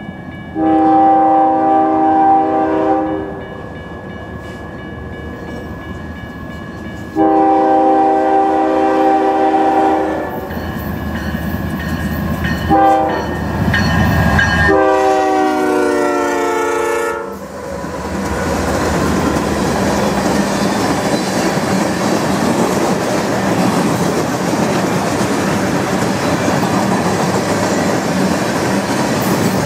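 Freight locomotive's multi-tone air horn sounding two long blasts, a short one and a long one, the grade-crossing warning pattern. The lead diesel units pass with a low rumble just before the last blast. After that comes the steady rumble and clatter of a long string of tank cars rolling by.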